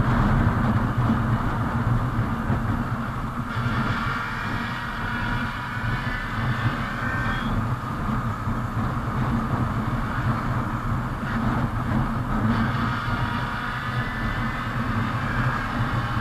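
Hero Super Splendor motorcycle's single-cylinder engine running steadily at cruising speed, with wind rushing over the microphone and tyre noise on the road.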